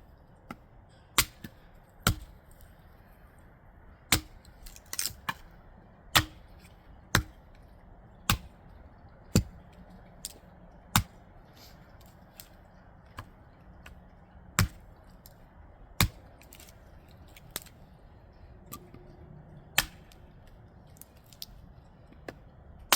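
A series of sharp knocks, about one a second for the first ten seconds, then fewer and further apart.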